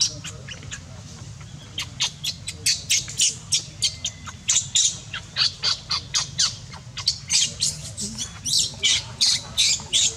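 Newborn baby macaque squealing in a rapid run of short, high-pitched squeaks, about three a second, starting about two seconds in.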